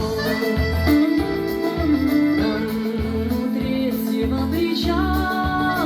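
Folk-rock music played through a Tribit StormBox Blast 2 portable Bluetooth speaker: an instrumental passage with plucked guitar over heavy bass that pulses in a steady rhythm.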